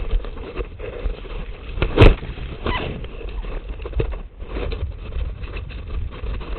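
Gloved hands working in mud and shallow creek water while setting a beaver trap: irregular splashes, squelches and knocks, with one louder knock about two seconds in, over a low steady rumble.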